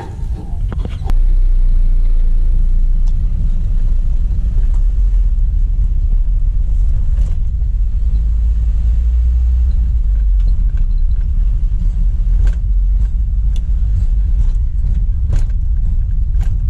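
Mahindra Bolero pickup's diesel engine running on the move, heard from inside the cab as a steady low rumble that comes up about a second in, with light clicks and rattles. Near the start, metal clunks as the tailgate latch is shut.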